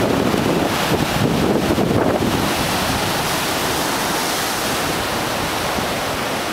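Heavy storm surf breaking and rushing on a rocky shore, mixed with strong wind buffeting the microphone: a dense, steady roar, a little louder in the first two seconds.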